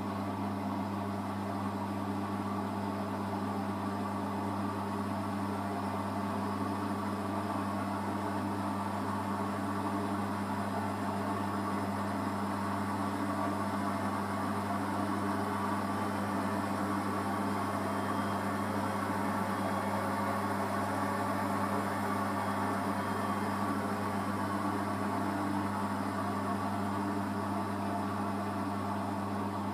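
Bosch Home Professional WAY32742 front-loading washing machine running on its Easy-care program, the drum turning with water and laundry inside. A steady hum with a constant low tone, even throughout.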